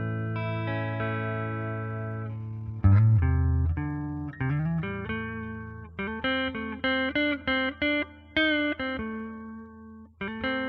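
Fender Telecaster electric guitar played with a clean tone through a booster pedal into a Fender Twin clean amp model. A chord rings out and fades, then a low note is struck and bent upward. A run of about ten short, clipped notes follows, and a chord is struck near the end.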